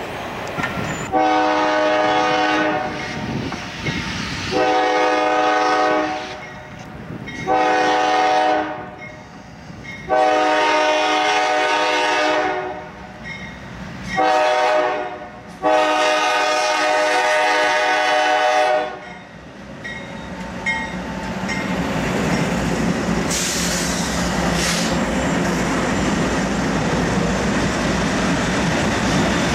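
Norfolk Southern diesel locomotive's air horn sounding six chord blasts in a grade-crossing pattern: long, long, short, long, then a short and a final long blast held about three seconds. After that the locomotives and freight cars pass close by, with engine and wheel noise growing steady and loud.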